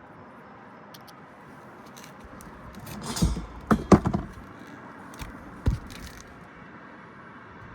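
Clanks and clatters of condenser fan motor parts and fan-guard hardware being handled: a quick cluster of knocks about three to four seconds in, then one more knock near six seconds.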